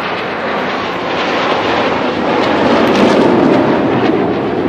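Jet engine noise from a formation of KAI T-50B jets flying overhead, each with a single turbofan. The noise is a steady rush that swells louder about halfway through.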